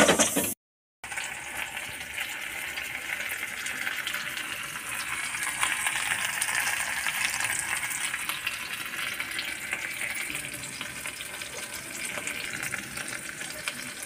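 Cooking oil sizzling and crackling in a pan on a gas stove, a steady hiss with fine crackles that starts about a second in.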